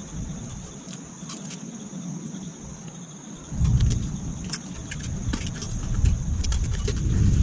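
Plastic wrap and bags crinkling and rustling in short crackles as protective film is peeled off the heater's metal parts. A low rumble comes in strongly about three and a half seconds in.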